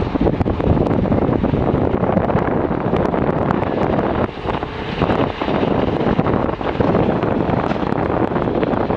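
JCB 3DX backhoe loader's diesel engine running steadily while it works, buried in heavy wind noise buffeting the microphone, with a brief drop in level about four seconds in.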